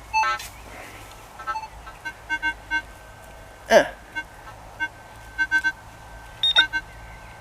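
Minelab CTX 3030 metal detector giving short, intermittent signal beeps as it is swept over a target in a dug hole, with a quick sliding tone about halfway through.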